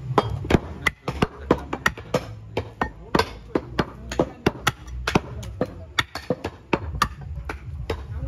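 Heavy cleavers chopping through beef and bone onto a thick wooden chopping block: sharp, irregular thuds about three to four a second from more than one chopper, over a steady low hum.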